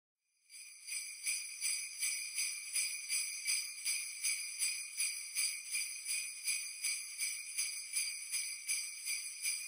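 Jingle bells shaken in a steady rhythm, about three shakes a second, coming in about half a second in.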